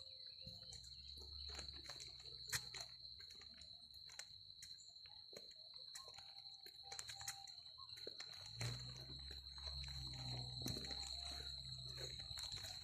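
Rainforest insects droning steadily at one high pitch, with scattered faint clicks and ticks. A low rumble comes in briefly near the start and again for the last few seconds.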